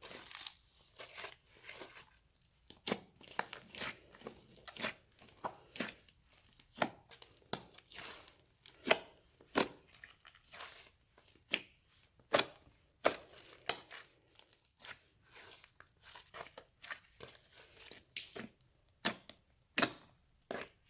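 Slime being squished and kneaded by hand, making irregular sticky pops and crackles, a few every second.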